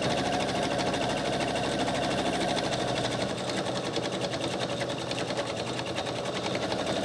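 Electric sewing machine running steadily at a fast, even stitch rate, sewing layers of cotton and wool wadding in one continuous seam.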